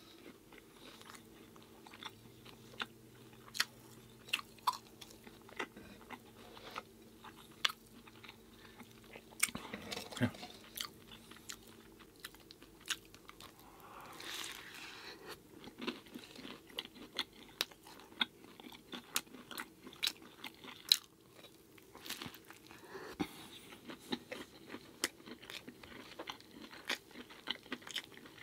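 A person chewing and biting food close to the microphone: a run of small, irregular wet mouth clicks and crunches.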